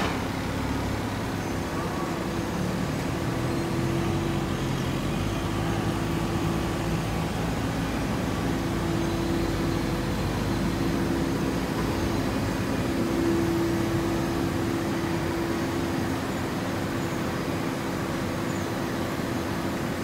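Steady machine hum of a full-automatic horizontal hay baler and its feed conveyor running, with a forklift engine running close by for the first several seconds before fading.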